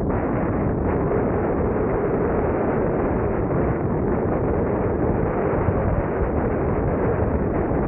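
Steady wind rushing over the microphone of a moving car, with engine and road noise underneath.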